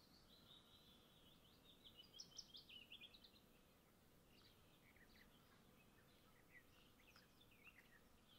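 Faint songbird song: quick chirps and twittering trills, busiest around two to three seconds in, with scattered chirps after, over a quiet outdoor background.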